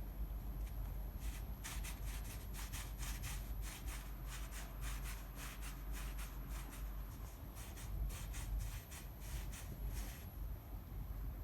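Cats scratching and pawing at the inside of a box, a quick irregular run of scratchy rubbing strokes that starts about a second in and stops shortly before the end, over a steady low hum.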